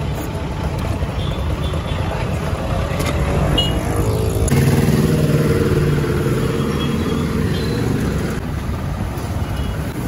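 Road traffic rumbling steadily, with one vehicle's engine coming up louder about four seconds in: its pitch rises, holds for about four seconds, then fades.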